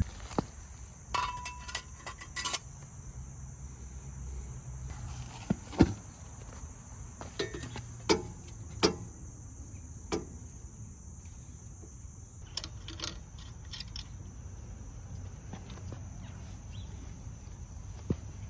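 Scattered metal clinks and knocks as a chrome exhaust muffler and its baffle are handled and slid onto the motorcycle's header pipe, with a brief metallic ring in the first couple of seconds. Under it runs a steady high chirring of insects.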